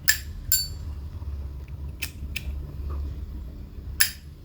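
Brass 1975 Zippo lighter's hinged lid clicking open and snapping shut, sharp metallic clicks with a bright ring: two close together at the start, two more about two seconds in, and a loud one near the end. The seller shows off its clear 'tan tan' lid sound.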